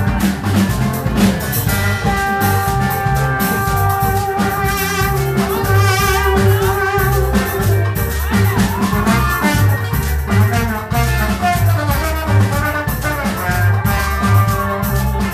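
Live Afro-Latin band playing an upbeat number, with drum kit, bass and percussion driving a steady beat under held notes and wavering melodic lines from the horns and keyboards.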